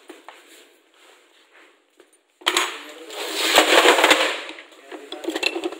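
Small metal parts and hardware clattering and rattling as a hand rummages through a plastic box of screws, fasteners and tape rolls. Faint clicks at first, then a sudden dense rattle about two and a half seconds in that is loudest around the middle and tails off.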